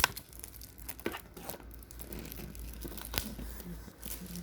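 Packaging being torn open and crinkled by hand: a sharp snap at the start, then scattered crackling with a few more sharp clicks.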